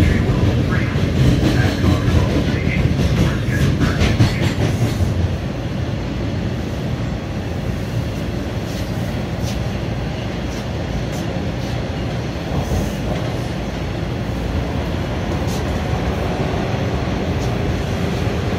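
Subway train running through a tunnel, heard from inside the car: a steady rumble of wheels and motors. Wheels click over rail joints in the first few seconds, then the rumble settles and turns slightly quieter.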